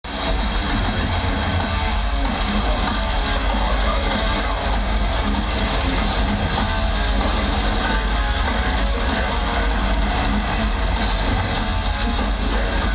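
Blackened death metal played live by a band: heavy electric guitars, bass and a drum kit, loud and dense throughout.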